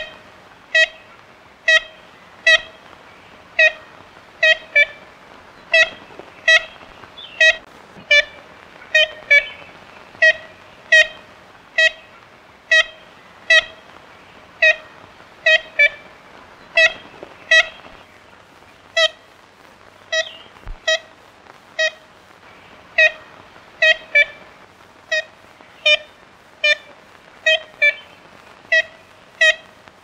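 Ivory-billed woodpecker giving its nasal, tin-horn-like 'kent' calls: short single notes repeated steadily, about one to two a second, with a brief pause about twenty seconds in.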